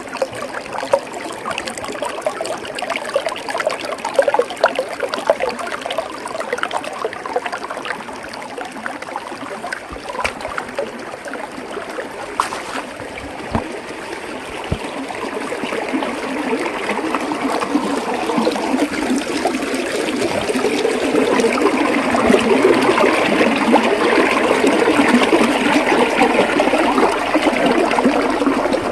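Small forest waterfall of rainwater splashing and trickling over rocks, a steady noise of water that swells and grows louder in the second half.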